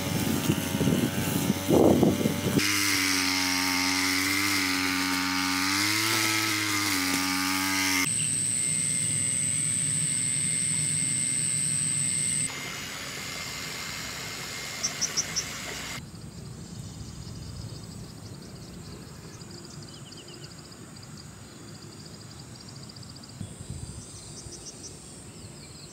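A two-stroke string trimmer engine running for about eight seconds, its pitch rising and falling as the throttle changes. It is followed by a steady high whine, then quieter outdoor ambience with a few short bird chirps.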